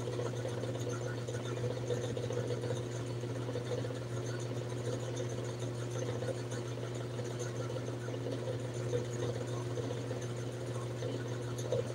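Steady low mechanical hum, like a small motor running, unchanging throughout.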